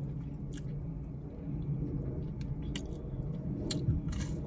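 Steady low rumble of a car heard from inside the cabin, with a few faint clicks of a chicken nugget being chewed and a short crunchy bite near the end.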